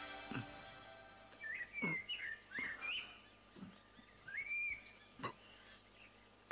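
Background music fading out, then several short chirps from a bird, rising and falling in pitch, with a couple of soft knocks.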